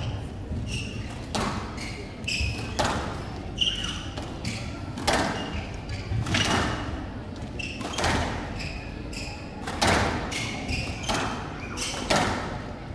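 Squash rally on a glass court: the ball is struck by the rackets and smacks off the walls with a sharp, echoing crack about every one and a half seconds. Between the shots come short squeaks of shoes on the court floor.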